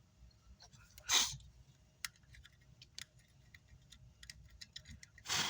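Scattered small clicks and taps of hand tools working on an amplifier circuit board, with a short burst of hiss about a second in and another near the end.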